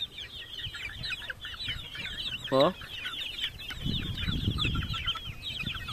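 A flock of month-old gamefowl chicks peeping constantly in short, high chirps, with one louder call sliding down in pitch about two and a half seconds in.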